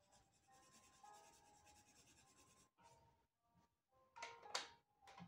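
Faint scratchy rubbing of a coloured pencil shading on paper, then, about four seconds in, a short clatter as a pencil is picked out of a tin of pencils.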